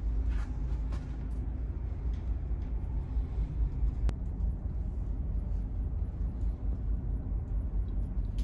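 Steady low rumble of a car ferry's engines and hull heard inside the passenger cabin while under way, with a single click about four seconds in.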